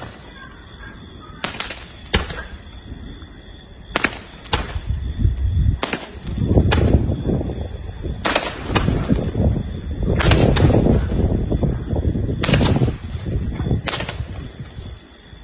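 Fireworks candles firing red-and-green-tailed chrysanthemum shells: about a dozen sharp bangs at uneven gaps, with a low rumbling between them through the middle of the volley.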